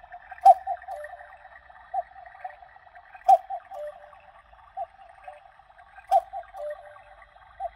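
Battery chalet cuckoo clock (Engstler 48718 QMT) sounding during its automaton show: a looping pattern of short, high tapping notes, with a sharp click opening each cycle about every three seconds.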